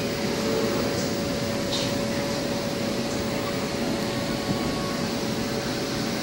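Steady whir of an electric blower fan keeping an inflatable bouncy play structure inflated, with a constant hum.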